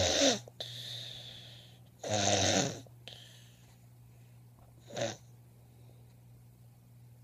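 Snoring: a loud snore at the start and another about two seconds in, the first followed by a breathy hiss, then a shorter, weaker snore about five seconds in. A steady low hum runs underneath.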